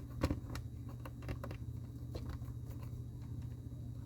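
Light plastic clicks and taps of a Lego minifigure being handled and turned, with the loudest click about a quarter second in, over a steady low hum.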